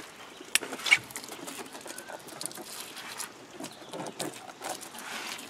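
Pump-up hand sprayer spraying cleaner onto an ATV's plastic body panels: a soft hiss with fine liquid patter on the wet plastic, and a couple of sharp ticks in the first second.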